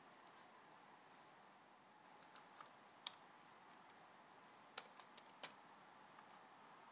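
Faint, scattered computer keyboard keystrokes: a few short clicks between about two and five and a half seconds in, over a low steady hiss.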